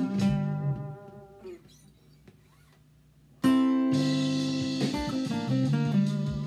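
Acoustic guitar playing blues: picked notes ring out and die away, then after a pause of near silence lasting about two seconds, a loud strummed chord comes in sharply about three and a half seconds in, followed by more picked notes.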